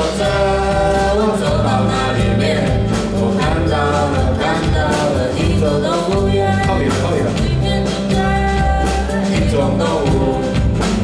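Band playing a song: a singer over a bass line and drums.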